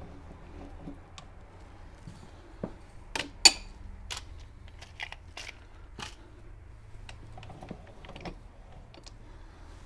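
Light scattered clicks and knocks of small hard objects being handled, with one sharp clack about three and a half seconds in.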